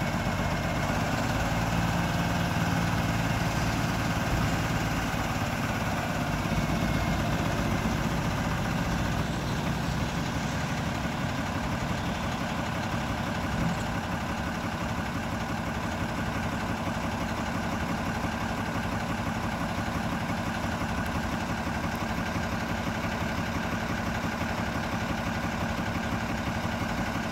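Diesel engine of a 2009 Freightliner Business Class M2 dump/plow truck idling steadily while the raised dump body is lowered. It is a little louder for the first dozen seconds or so, then settles.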